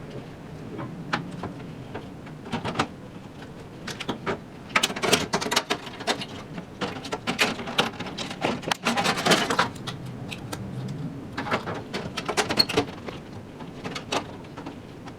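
Irregular clicks, taps and knocks of hands fitting parts into a PC's metal case, busiest through the middle.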